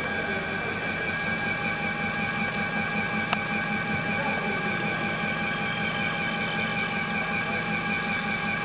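UH-1250A CNC milling machine running a milling test: a steady whine made of several held tones over a fast, low pulsing, with one sharp click about three seconds in.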